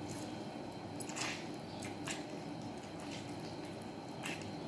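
Half a lemon squeezed by hand, giving three faint, short squelches as the juice drips into a small glass bowl.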